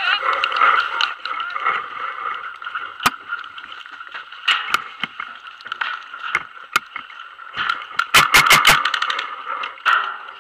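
Paintball markers firing: a few scattered single shots, then a rapid burst of about eight shots in under a second near the end, over a steady background hiss.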